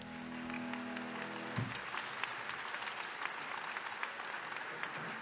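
An audience applauding as the band's last chord of piano, guitar and bass rings. The chord is cut off with a soft thump about one and a half seconds in, and then the clapping goes on alone.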